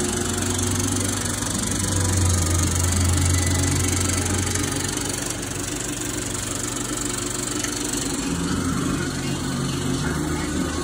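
Century C 35mm film projector running, its motor and film mechanism giving a steady mechanical running sound.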